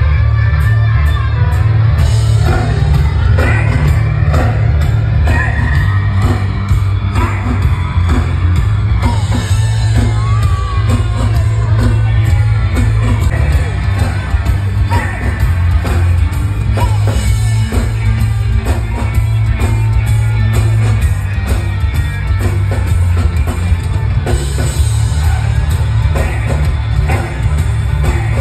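Live rock band playing loud through a PA system: electric guitars, bass and drums, with a singer's vocal over them and a heavy low end.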